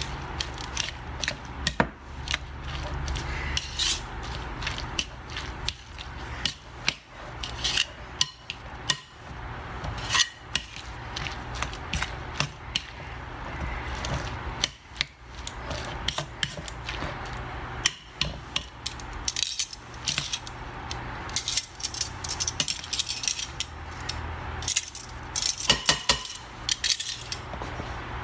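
Metal utensil stirring shredded hash browns in a glass mixing bowl, with rapid irregular clinks and scrapes against the glass and the soft rustle of the moist potato shreds. A low steady hum runs underneath.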